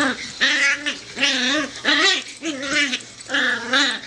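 A wiener dog and a puppy vocalizing as they wrestle in play: a quick run of short, high, wavering yips and growls, about two a second.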